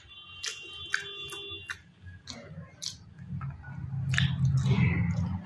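Close chewing and wet squelching of a mouthful of rice and curry, with scattered sharp mouth clicks; the chewing grows louder from about three seconds in.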